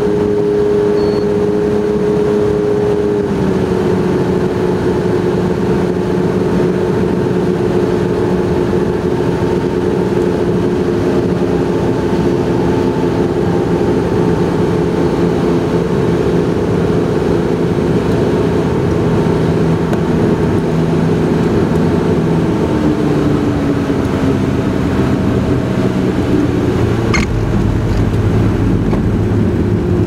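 Light propeller airplane's engine droning steadily inside the cabin, its pitch stepping down as power is reduced on the landing approach. Near the end a brief knock is followed by a deeper rumble as the wheels roll on the runway.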